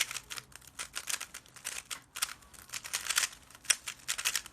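Speedcube being turned rapidly during a speedsolve, its plastic layers clacking in quick irregular bursts.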